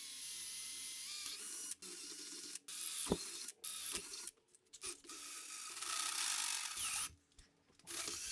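Cordless drill boring into a steel plate held in a vise, its motor whining and the bit chattering in the metal. It runs in bursts, stopping and restarting several times, with the motor speed rising and falling.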